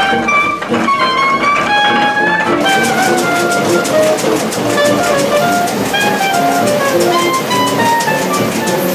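Instrumental background music: a melody of held notes, joined by a steady beat about two and a half seconds in.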